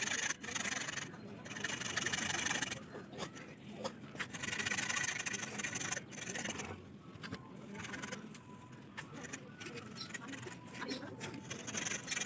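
Knife blade scraping and cutting green bamboo in several strokes, each a second or two long, with short pauses between them.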